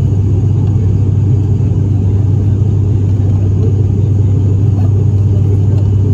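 ATR 72-600 turboprop engines and six-bladed propellers running steadily, a constant low propeller drone with rumble, heard inside the cabin near the front.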